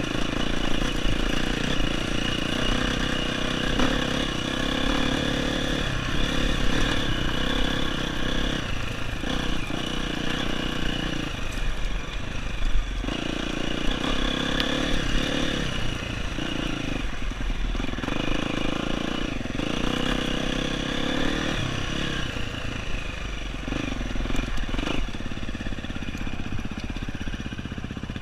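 Off-road dirt bike engine running under load over rough rocky ground, the throttle opening and closing every few seconds, with the rumble of the bike jolting over the terrain. It eases off near the end.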